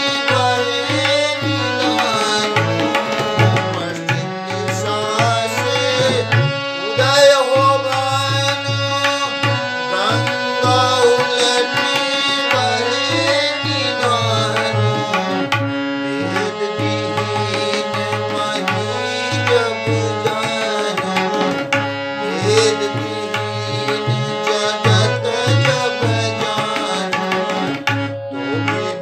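Tabla pair playing a steady rhythm, with a harmonium holding a drone and playing the melody above it.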